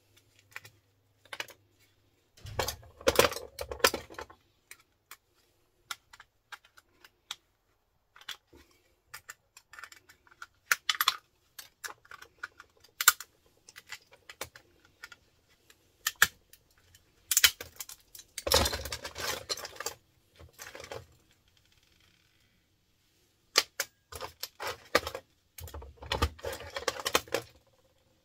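Small plastic and brass parts clicking and clattering as electrical plugs and fittings are pried and snipped apart with pliers and side cutters, with three louder stretches of rattling: about three seconds in, in the middle, and near the end.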